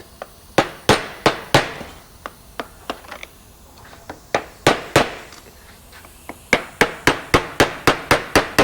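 Hammer tapping on metal, knocking a part straight down into place during a front wheel bearing replacement. The taps come in groups: a few separate blows at first, then a quicker run of about five taps a second near the end.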